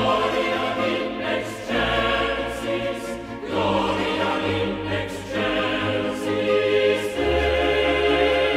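A choir singing slow, sustained chords that change about every two seconds.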